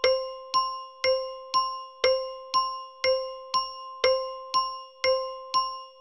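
Bell-toned tick-tock timer sound effect: a short ringing bell strike every half second, alternating a louder tick and a softer tock, each dying away before the next.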